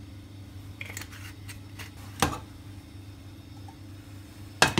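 Frying pan being moved and tilted on a glass-ceramic cooktop to swirl hot olive oil, knocking against the hob in a few sharp clicks, the loudest near the end, over a steady low hum.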